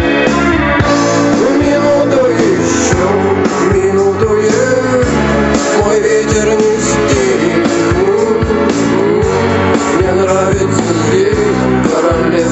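Rock music with guitar and a melody line that wavers up and down in pitch, playing steadily throughout.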